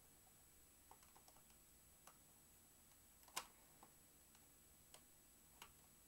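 Faint, irregular small clicks of a screwdriver turning a tiny screw into the memory cover plate in the battery bay of a 2008 MacBook, with one sharper click about three and a half seconds in.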